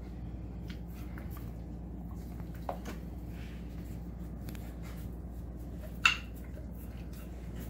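Alaskan Malamute eating a slab of raw beef ribs: faint wet mouthing and scattered small clicks, with one sharp knock about six seconds in.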